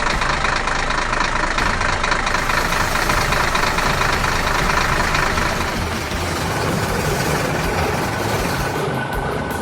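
Truck engine sound effect running steadily, with a fast, even pulsing.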